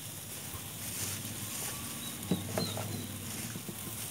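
Chicken drumsticks sizzling and crackling on a barbecue grill, with a few sharp knocks about two and a half seconds in.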